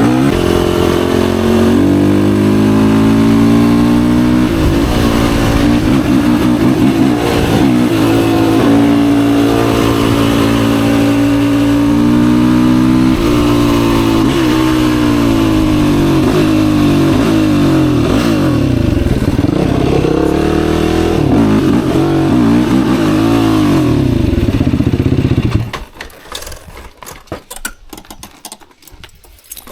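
Yamaha YFZ450R quad's single-cylinder four-stroke engine running under throttle, its pitch rising and falling with the revs. It is shut off about 25 seconds in, leaving a few faint clicks.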